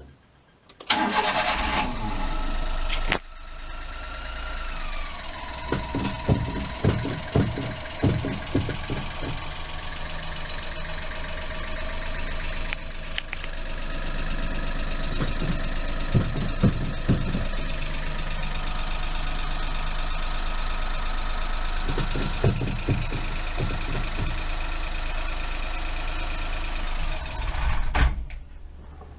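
Honda Acty van's three-cylinder engine cranked by the starter for about two seconds, catching and idling. Irregular sharp knocks come in clusters during the idle, and the engine is switched off near the end.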